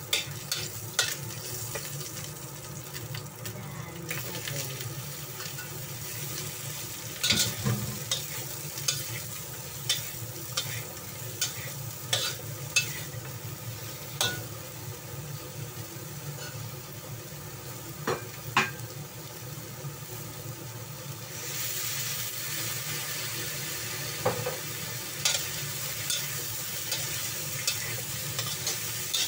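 Oil sizzling in a wok as garlic, onion and chunks of opo (bottle gourd) are stir-fried, with frequent sharp clicks and scrapes of the utensil against the pan. The sizzle grows louder about two-thirds of the way through.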